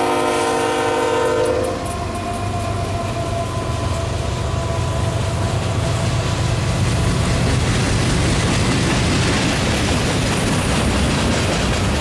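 Union Pacific freight train passing close. A locomotive horn chord cuts off a little under two seconds in, then the freight cars roll by with a steady rumble and wheel clatter on the rails.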